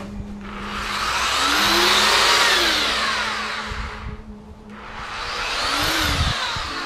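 Handheld electric power sander with a dust bag running steadily while it is worked along the edge of a fiberglassed foam panel. It swells and fades twice as it passes along, easing off briefly about four seconds in.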